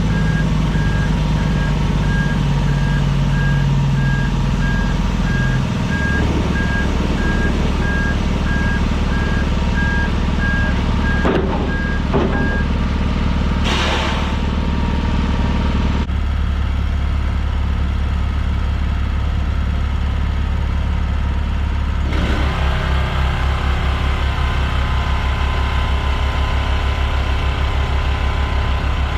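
Semi truck's diesel engine running while it backs up, its reverse alarm beeping at an even pace for about the first thirteen seconds. A short hiss comes about fourteen seconds in, then the engine runs on alone, its note changing twice.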